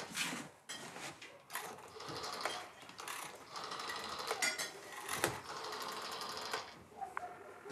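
Red plastic rotary telephone being dialled: the finger wheel is wound round and runs back with a rapid train of clicks, several digits one after another.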